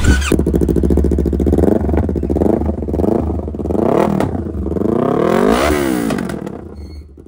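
Yamaha R3's parallel-twin engine revving through a replica aftermarket muffler held onto the header by hand. It blips up and down about five times, then eases back toward idle near the end.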